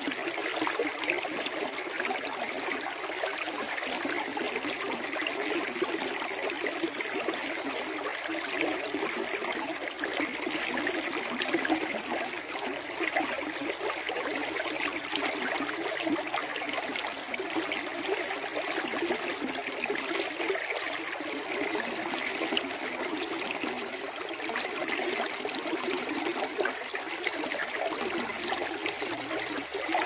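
Shallow stream running over rocks: a steady trickling and splashing of water, light and even, with no deep rumble.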